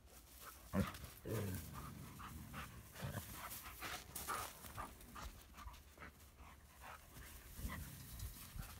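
Malamute puppy panting, with scattered short scuffing sounds and one sharp thump about a second in.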